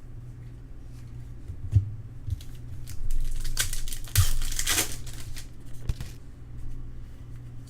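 A trading card pack's wrapper being crinkled and torn open, loudest for about two seconds in the middle, with a few light knocks as it is handled.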